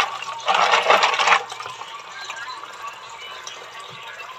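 A hand stirs fresh green mussels in a basin of water: a splashing rush of water and shells for about the first second and a half, then quieter, scattered clicks of shells knocking together.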